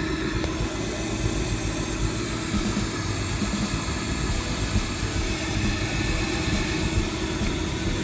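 Vacuum cleaner running steadily as an even drone with a constant hum, pulling on an oil-extraction tank through a tube in the dipstick hole. The plastic tank has caved in under the suction and no oil is being drawn up; the owner thinks the vacuum is being lost into the tank.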